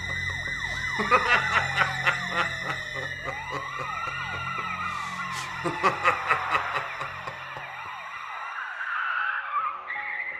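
Horror-film sound design: slow siren-like wailing tones that rise and fall, over a low drone and sharp clicking hits. The drone drops out about eight seconds in.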